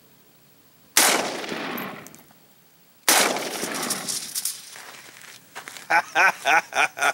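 Two AK-47 rifle shots about two seconds apart, each followed by a long echo that trails away. A man laughs in short bursts near the end.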